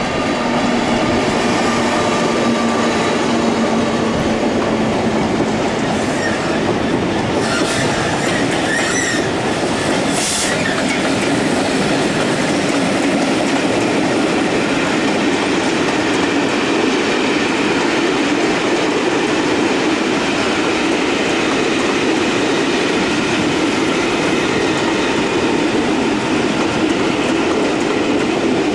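EWS Class 66 diesel locomotive passing with its train: engine running and wheels clattering over the track, with brief wheel squeals about six to ten seconds in.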